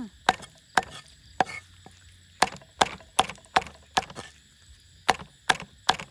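Cleaver chopping boiled cow's skin on a thick wooden chopping board: about a dozen sharp knocks of the blade striking the wood, roughly two a second, with a couple of short pauses.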